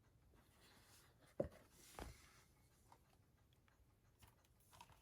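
Near silence with faint handling of glossy art cards: two soft taps about a second and a half and two seconds in.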